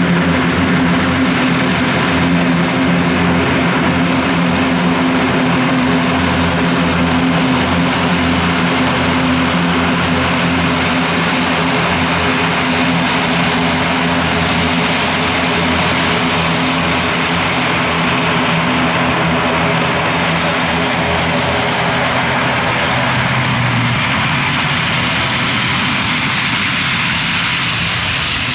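Loud, steady drone of the ATR 72-600's twin Pratt & Whitney PW127 turboprop engines and propellers, a low hum of several steady tones over a broad rushing noise, easing off slightly near the end.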